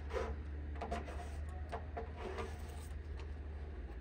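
Short, irregular scraping strokes of a small hand-held tool rubbed along a riveted seam of bare aluminum aircraft skin, over a steady low hum.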